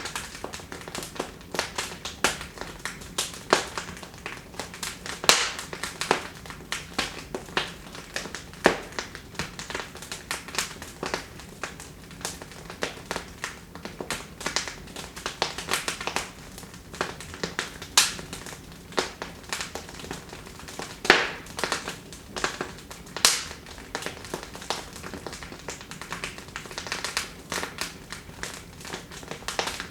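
Wood fire in a fireplace crackling, with a steady stream of small irregular snaps and a few louder pops over a low hiss.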